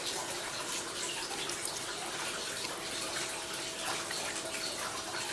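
Steady rushing background noise, even in level, with a few light clicks. A faint steady hum comes in about two seconds in.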